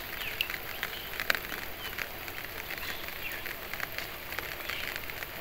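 Fine nylon gill net crackling and rustling as fingers pick a small fish out of its meshes, with scattered light clicks and one sharper click about a second in.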